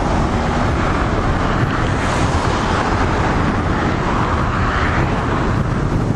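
Steady rush of wind and road noise from a moving car, with wind buffeting the microphone; the hiss swells briefly about four seconds in.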